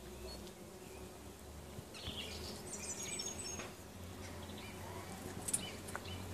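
Many bumblebees buzzing together in a flowering shrub: a steady, faint, low hum.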